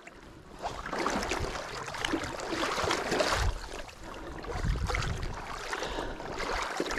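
Shallow river water sloshing and splashing unevenly, with low wind rumbles on the microphone about three seconds and five seconds in.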